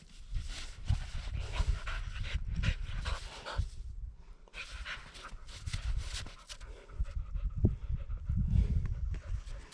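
Dog panting hard after running and rolling in snow, with wind buffeting the microphone.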